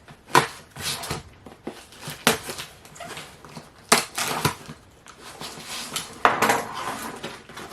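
Cardboard box being opened by hand: a series of sharp knocks and clicks with scraping, and a burst of rustling about six seconds in.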